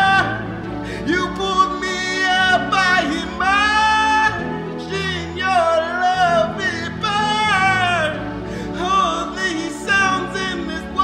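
Gospel song: a singer's drawn-out vocal runs, the pitch sliding and wavering from note to note, over steady sustained instrumental backing.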